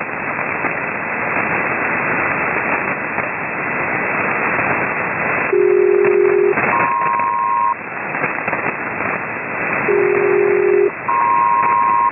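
Hiss and crackle of HF single-sideband static, then a SELCAL code sent twice over the radio. Each sending is about a second of a low two-tone chord followed straight away by about a second of a higher two-tone chord, calling up an aircraft's selective-calling alert.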